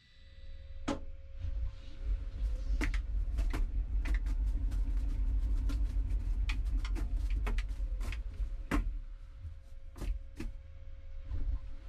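LG TROMM WashTower dryer starting its cycle: a low drum rumble builds over the first second or two, under a steady hum. Many sharp irregular clicks and knocks come as the laundry tumbles and drops inside the turning drum.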